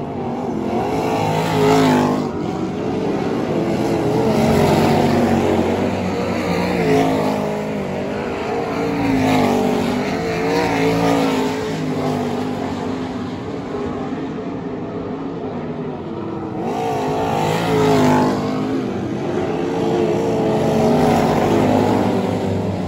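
A pack of winged 360 sprint cars racing on a dirt oval, several V8 engines revving and backing off together through the turns. The sound swells as cars pass close, about two seconds in and again near eighteen seconds.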